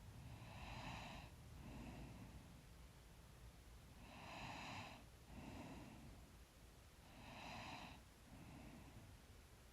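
Faint, slow, even breathing of a sleeping woman close to the microphone, about one breath every three seconds, each in two soft parts, a longer breath followed by a shorter one.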